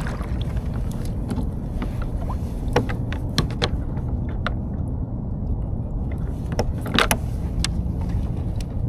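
Kayak on open water: a steady low rumble of wind on the microphone, with scattered light knocks and clicks from the boat and gear, the loudest about seven seconds in.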